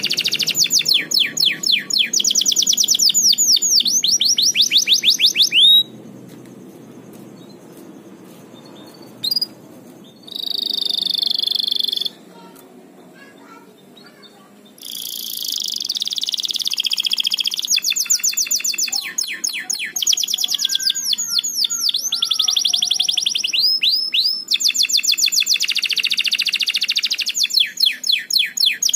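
Pied domestic canary singing in long runs of rapid repeated-note trills and rolls, breaking off for several seconds in the middle except for one short held whistle. The owner reads this vigorous singing as a sign of a cock bird in over-strong breeding condition (over birahi).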